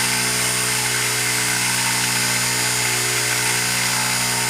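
Small DC motor with a rotor fan spinning a homemade rotary switch at a steady speed of about 3600 RPM: an even, unchanging mechanical hum over a steady hiss.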